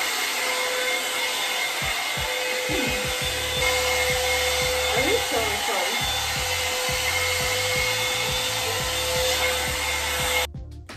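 Handheld hot-air dryer brush running steadily, a constant blowing rush with a faint steady whine, cutting off suddenly near the end.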